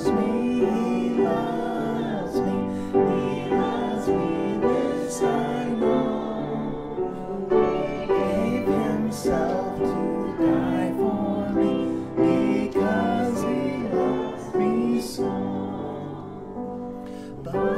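Hymn music: piano accompaniment with voices singing a slow hymn tune.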